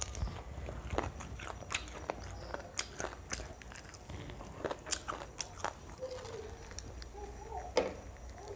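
Crispy-coated fried chicken being bitten and chewed close to the microphone: irregular sharp crunches of the fried coating, with chewing between them.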